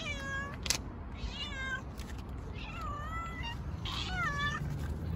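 A cat meowing four times, about a second apart, each meow bending in pitch: a cat begging for food as it is about to be fed. A single sharp click comes just after the first meow.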